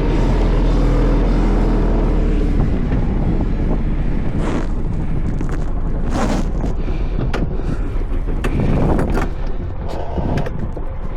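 Wind buffeting the microphone on a small sailboat under way: a steady low rumble with a few louder gusts.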